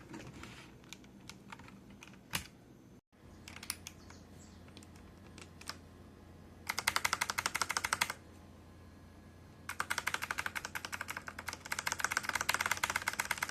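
Mechanical keyboard keys typed in quick runs: a few scattered single clicks, then two fast clattering runs, one about a second and a half long and a longer one of about four seconds near the end.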